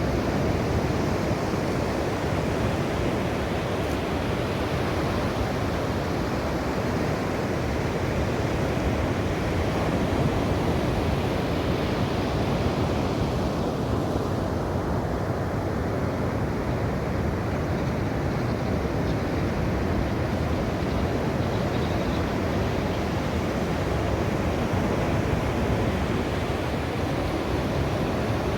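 Ocean waves washing on a shore: a continuous, steady rush of surf with no distinct individual breaks.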